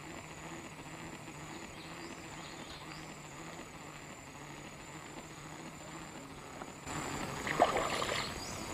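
Steady high insect chirping, pulsing a little over once a second, over a quiet outdoor background. About seven seconds in, louder rustling and a few sharp clicks start.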